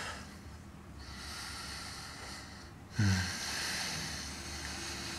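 Close, heavy breathing: two long, airy breaths, with a short low groan that falls in pitch about three seconds in.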